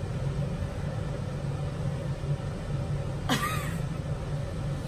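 Steady low hum, with one short vocal sound from a person, falling in pitch, about three seconds in.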